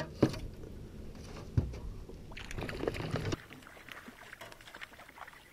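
Two sharp knocks in a small aluminium rowboat, then about a second of splashing as a hooked rainbow trout thrashes at the surface beside the boat, stopping suddenly.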